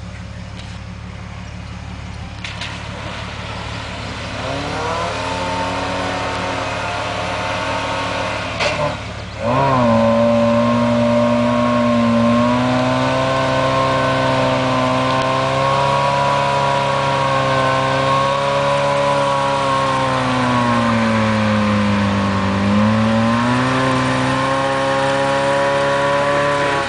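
Suzuki Samurai's engine revving hard as it pushes through deep, muddy floodwater. The revs build from about four seconds in, break briefly near nine seconds, then hold high, sagging and recovering about two thirds of the way through.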